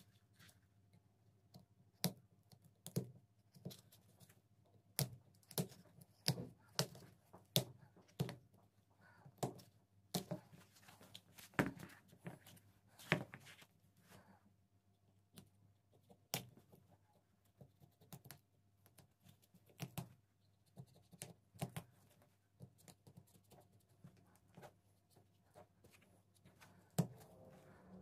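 Hands peeling the worn rubber outsole off a sandal: irregular sharp clicks and scrapes with short tearing noises, thickest about halfway through.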